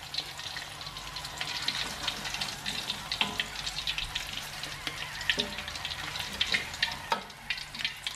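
Hot oil in a wok sizzling and crackling steadily around beef tripe that has been fried until dry, as the pieces are lifted out with a metal spatula. A few sharper knocks of the spatula come at about three, five and seven seconds.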